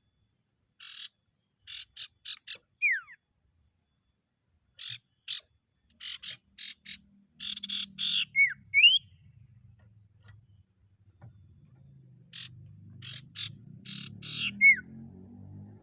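Common iora (sirtu) singing three phrases: a quick series of short, sharp notes, each phrase closing with a falling whistle.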